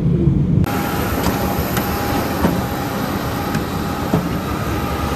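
A jet airliner's deep cabin rumble in flight, cut off less than a second in by airport ramp noise: a steady mechanical whine and hum from parked aircraft and ground equipment, with a few faint clicks.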